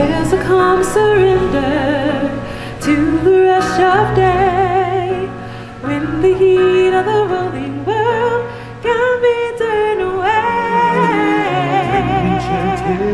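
A woman singing long, wavering held notes with vibrato over backing music, in phrases with short breaks between them.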